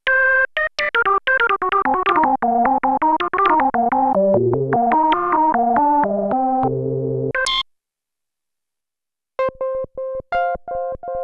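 Sequential Prophet-10 analog polyphonic synthesizer, recorded directly from its output, playing factory presets. A fast run of short pitched notes steps downward and ends with a brief bright high note, then stops suddenly. After a pause of about two seconds, the next preset starts with rapid repeated short notes.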